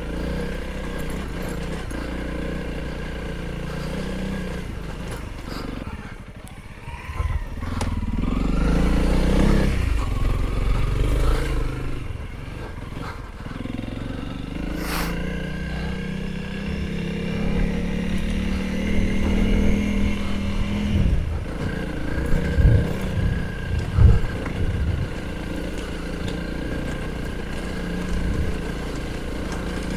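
Honda CRF300L's single-cylinder four-stroke engine running as the bike climbs a rough dirt track, its revs rising and falling as the throttle is worked. There is a long steady pull in the middle and a few sharp knocks in the latter half.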